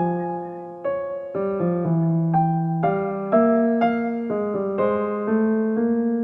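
Soft background music: electric piano playing a gentle melody, a new note or chord about every half second.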